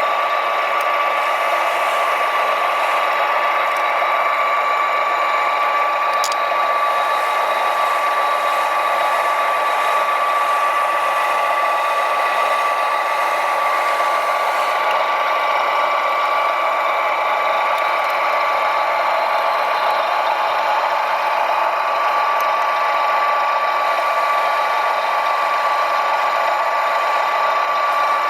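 Small electric motors and gearboxes of radio-controlled model construction machines running, a steady high whine with a mechanical rattle. There is a short click about six seconds in.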